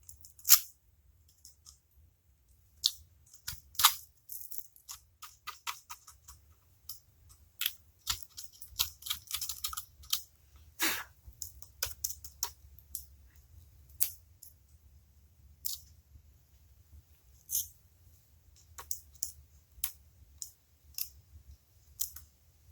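Irregular clicks and scrapes of hand tools working around the bolt heads on an engine's valve cover, cleaning them so a wrench can fit, with scattered sharper knocks.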